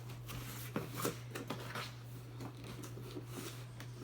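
Packaging rustling with scattered small clicks and knocks as a boxed airsoft gun is unpacked and lifted out, over a steady low hum.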